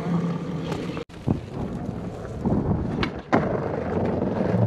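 Mountain bike tyres humming steadily on asphalt for about a second. Then skateboard wheels rolling on concrete, with several sharp clacks of the board, the loudest a little past halfway.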